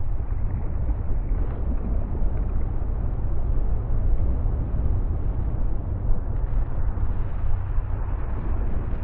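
Sound-designed volcanic eruption rumble: a steady, deep roar, heaviest in the bass, with a rough, noisy texture above it.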